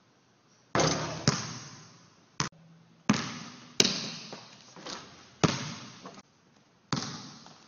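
A basketball bouncing on a hardwood gym floor, about eight bounces at uneven spacing, each one echoing around the hall.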